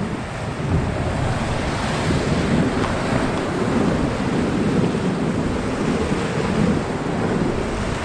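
Whitewater rapids rushing and churning around an inflatable raft, a steady rush of water with wind buffeting the microphone.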